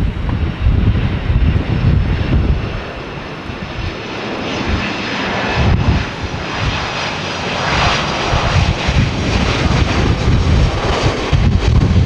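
A Japan Airlines Boeing 767's jet engines as the airliner rolls along the runway after landing and passes close by. The engine noise swells from about a third of the way in, is loudest about two-thirds through, then eases. Heavy wind buffets the microphone throughout.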